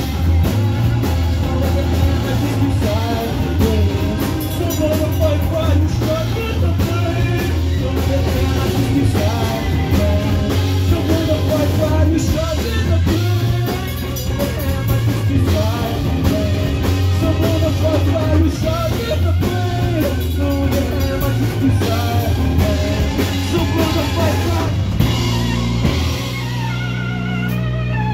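A live rock band playing loudly in a small room: electric guitars over bass and a drum kit with cymbals.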